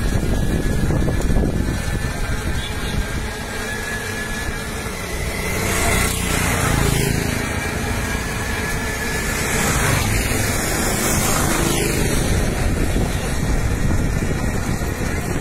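Motorcycle and auto-rickshaw traffic running through a flooded street: a steady, loud rumble of small engines, with two louder noisy surges about six and ten seconds in.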